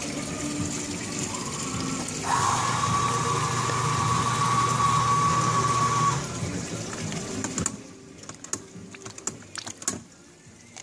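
A machine runs with a steady whine over a low hum for about four seconds, then stops. Light clicks and taps follow.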